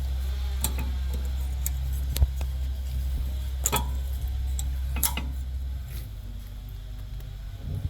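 Scattered metallic clicks and taps as brake pads are handled and fitted into a car's rear caliper bracket, over a steady low hum that drops off about six seconds in.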